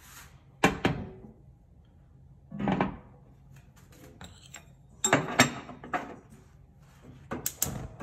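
Cast-iron burner grates being set back onto a stainless-steel gas cooktop: separate metal clanks and knocks, the sharpest about a second in, a duller thud near three seconds, a cluster of clanks around five to six seconds, and a few quick clicks near the end.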